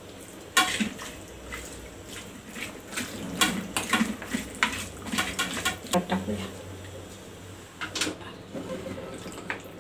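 A metal utensil scraping and clinking against a steel bowl as raw chicken pieces are turned and rubbed with turmeric and salt: a run of small irregular clinks and scrapes, with a few more clinks near the end.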